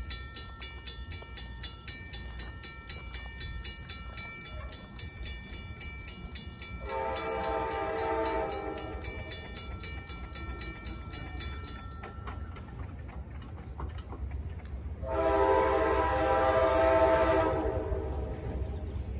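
Railroad crossing warning bell dinging rapidly as the gates come down, warning of an approaching train; the dinging stops about twelve seconds in. Over it, an Amtrak locomotive's Nathan K5LA five-chime air horn sounds two blasts for the crossing: a long one about seven seconds in, and a slightly shorter, louder one near the end.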